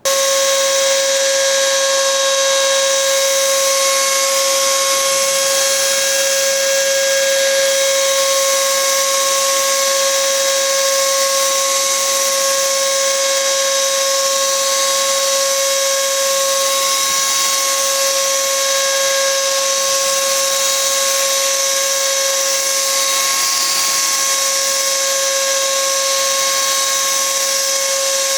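Wagner electric paint sprayer switching on suddenly and running steadily while spraying paint: a constant motor whine over a loud hiss of air.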